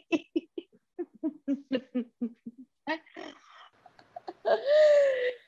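A woman laughing: a run of short voiced ha-ha pulses, about four or five a second, trailing off into breathy laughter, with a longer drawn-out voiced sound near the end.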